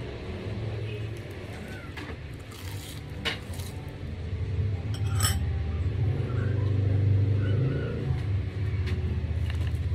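Eating sounds from chewing a nori-wrapped rice ball, with a few sharp clinks like a spoon against a glass bowl. A low steady rumble underneath grows louder in the second half.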